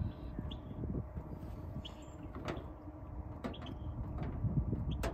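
Wind buffeting the microphone as a steady low rumble, with a few light clicks and knocks from food being handled on a metal tray on a truck tailgate.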